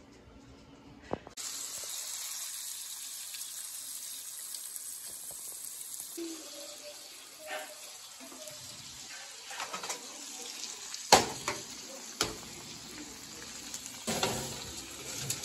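Steak frying in butter and garlic in a pan, a steady sizzling hiss that starts suddenly about a second in. Two sharp knocks come later, the first the loudest sound of all, about a second apart.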